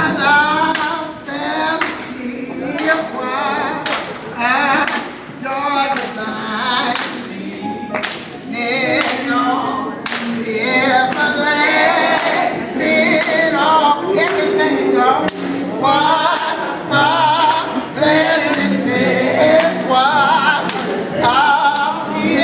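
Several voices singing together, with steady hand-clapping on the beat.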